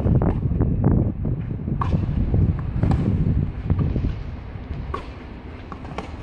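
Tennis ball struck with rackets during a clay-court rally: sharp pops every second or two. A low rumble, loudest in the first half, sits under them.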